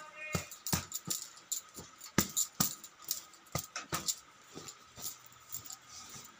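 Handling noise from a phone held in the hand and bedding being moved: irregular clicks, taps and rustles, a few to several a second, with a faint steady hum underneath.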